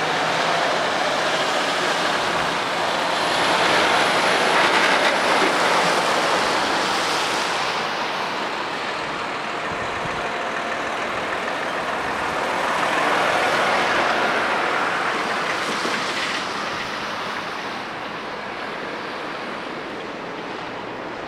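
Articulated lorries driving past one after another, their engine and tyre noise swelling and fading twice.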